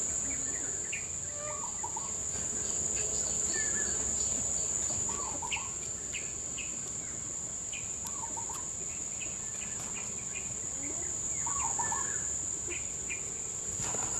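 Steady high-pitched insect drone, with a bird repeating a short wavering call about every three seconds and a few brief chirps.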